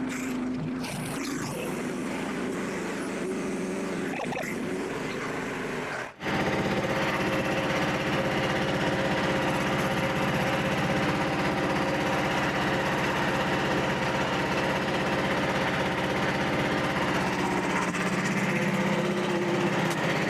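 Frontier OS27 band sawmill running steadily, its engine under load as the band blade saws through a walnut log. There is a brief break about six seconds in, and then it runs on a little louder.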